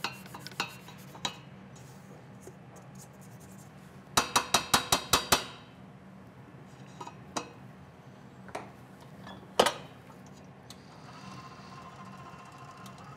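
Spatula rapped quickly against the rim of a stainless steel stand-mixer bowl, about eight ringing metal taps in just over a second, knocking off dough after scraping down the sides. A few single clinks come before, and one sharp knock comes later.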